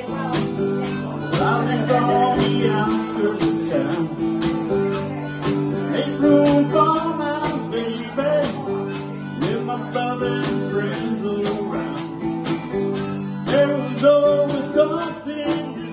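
Live acoustic music: an acoustic guitar strummed through an amplified PA, with a man singing over it and a steady beat of sharp percussive hits.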